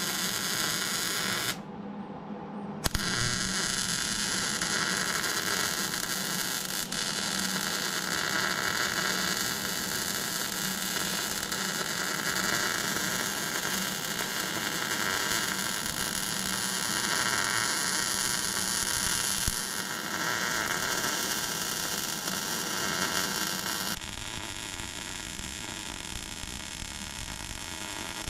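Electric arc welding on steel: the arc sizzles steadily. It stops about a second and a half in, strikes again about a second later, and runs a little quieter for the last few seconds.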